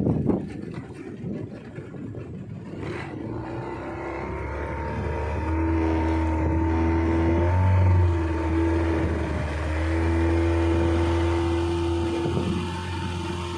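A fishing boat's motor running under way. It picks up in pitch and loudness from about four seconds in, dips briefly around eight seconds, then holds steady, with wind and water noise at the start.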